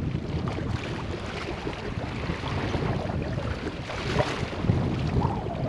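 Wind buffeting the microphone over choppy water lapping and slapping against a kayak's hull, a steady rumbling rush with no clear single event.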